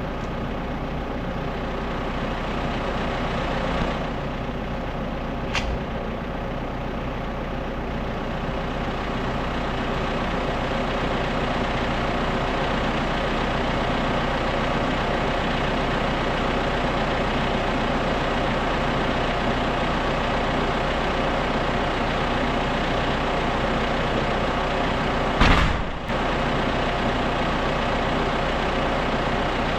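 Tractor diesel engine idling steadily, with a sharp click about five and a half seconds in and a short thump near the end.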